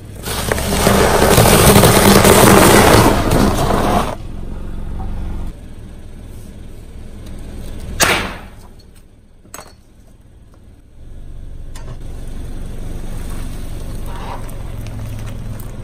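Car tyre rolling over a row of spent honeycomb coal briquettes, crushing them with a loud crunching for about four seconds. About eight seconds in, a confetti cannon goes off with one sharp bang. Near the end a car engine runs steadily.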